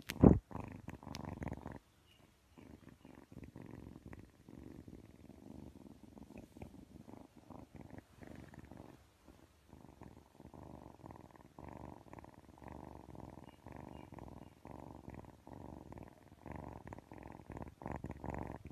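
Kitten purring close to the microphone, in a steady run of purrs rising and falling with its breaths. There is a loud thump just after the start and a short break in the purring about two seconds in.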